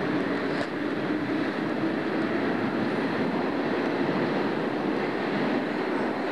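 Steady rumble and rushing noise inside a metro train car as the train comes into a station.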